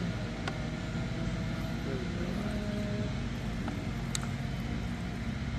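A steady low mechanical hum, like a motor running nearby, with a couple of faint clicks.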